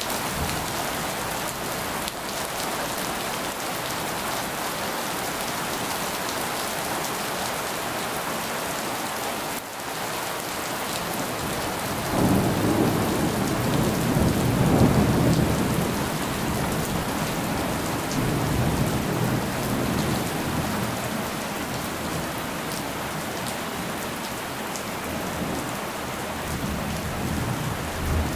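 Heavy rain falling steadily on a road and pavement. About twelve seconds in, a roll of thunder rumbles for a few seconds, loudest near fifteen seconds, then fades back under the rain.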